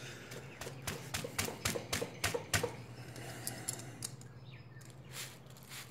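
A quick run of light metallic clicks and taps, densest in the first three seconds and then sparser: a feeler gauge and small hand tools being handled against a motorcycle cylinder head while setting the valve clearance.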